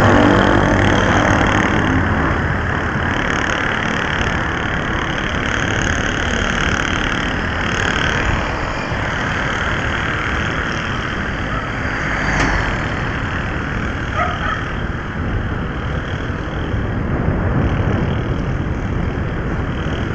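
Steady road and wind noise of riding along a street, a low rumble on the microphone, with the engine hum of nearby traffic.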